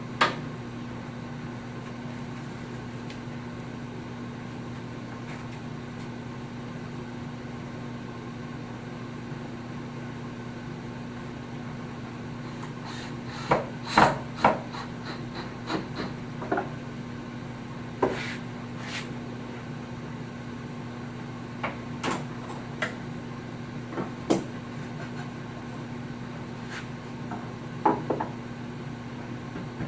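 Scattered knocks and clacks of wooden cabinet parts and tools being handled and set down during assembly, some in quick clusters, over a steady low hum.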